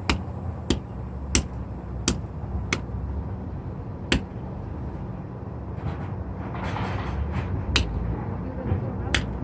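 A series of sharp taps, about one every two-thirds of a second at first and then more spaced out, over a steady low hum, with a brief hiss in the middle.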